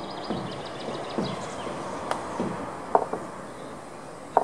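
A few sharp knocks from crew working around a standing steam locomotive, the loudest about three seconds in and just before the end, over a steady background noise.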